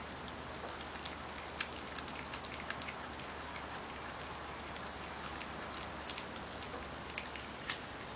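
Small dog chewing a raw meaty bone: scattered sharp clicks and crunches of teeth on bone, irregular, over a steady hiss.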